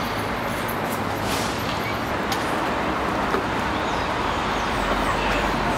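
City street ambience: a steady wash of traffic noise.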